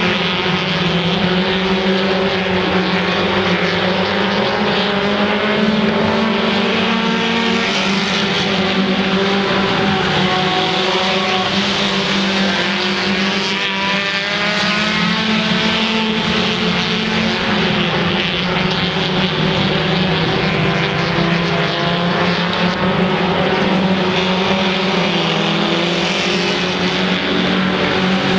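A field of mini stock race cars running laps on a dirt oval, several four-cylinder engines at once at racing revs. Their pitch rises and falls as cars accelerate off the turns and lift, with passing cars swelling and fading.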